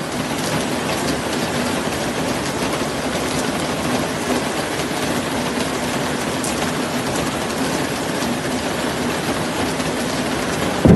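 Heavy rain pouring down in a steady, even rush, over running floodwater, with a faint low hum underneath.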